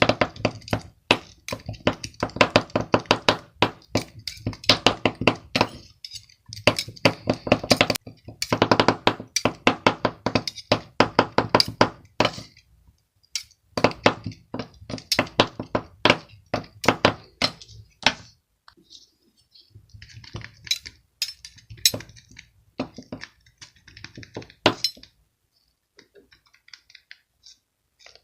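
Rapid clicking, tapping and clinking of hard objects, with a steady pitched hum under the clicks through the first half. Sparser, quieter clicks follow after about 19 seconds.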